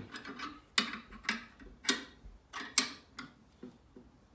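Sharp metallic clicks, about one every half second and uneven, as a 3/8 NPT tap is turned by hand into a fuel rail to cut new threads; they die away in the last second.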